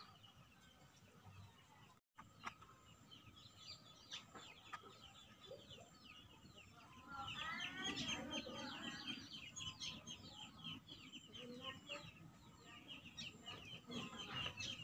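Chickens clucking, with a louder call about eight seconds in, over rapid chirping of small birds. The sound cuts out briefly about two seconds in.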